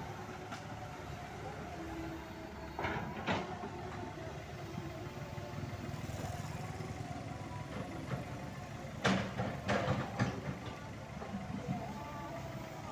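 Excavator's diesel engine running steadily, with a couple of sharp knocks about three seconds in and a louder cluster of clanks and scrapes around nine to ten seconds in as the bucket works the waste.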